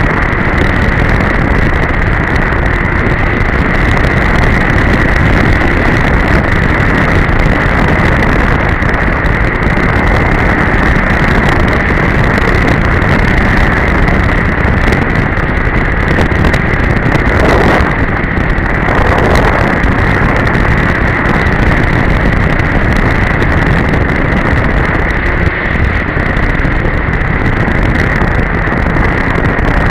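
2002 Polaris Edge two-stroke snowmobile running steadily at trail speed, with a steady high whine over the engine and track noise, mixed with wind buffeting the microphone.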